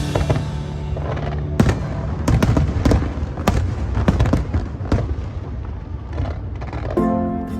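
Aerial fireworks bursting: an irregular run of bangs and crackles, many in quick succession. Show music comes back in near the end.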